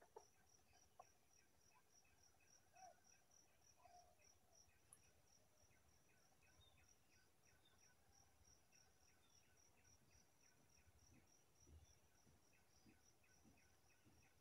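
Faint insect chirping, most likely crickets, in an even pulse of about four chirps a second. A few faint short calls come in the first few seconds, and a few soft low thumps near the end.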